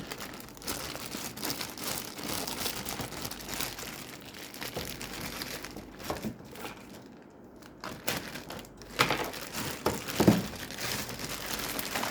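Packaging being handled during the unboxing of a sewing machine, crinkling and rustling irregularly, quieter for a couple of seconds past the middle.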